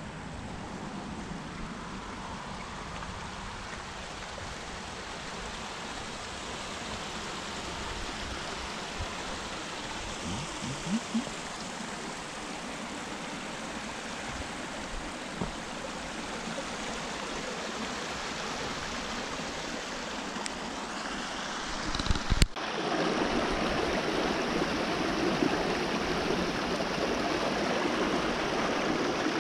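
Shallow stream of a lake's outflow running over rocks and logs, a steady rush of water. It becomes louder and fuller after a sudden break about two-thirds of the way in. A few short low thumps come near the middle and just before the break.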